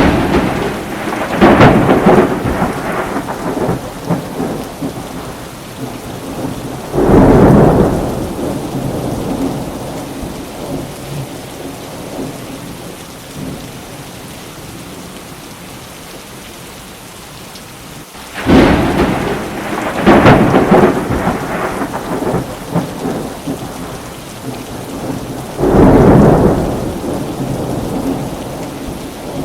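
Thunderstorm: steady rain falling, with several loud rolls of thunder that break in suddenly and die away over a few seconds each.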